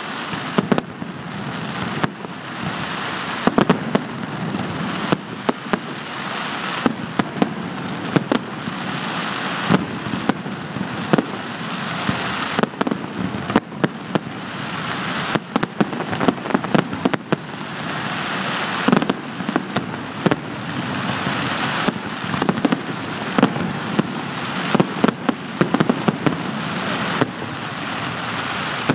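Aerial fireworks display with shells bursting overhead: loud, irregular bangs, several a second, over a continuous crackle.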